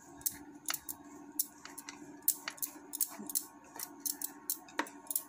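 Wooden spatula stirring a dry mix of ground spice powder and crushed peanuts on a steel plate, making irregular light scrapes and clicks against the metal.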